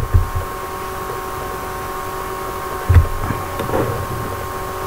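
Steady electrical hum and hiss in the recording, with a thin steady whine above it. Two dull low thumps stand out, one at the start and a louder one about three seconds in.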